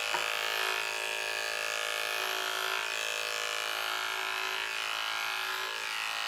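Electric dog-grooming clipper running with a steady hum as its blade shaves the coat on a small dog's side.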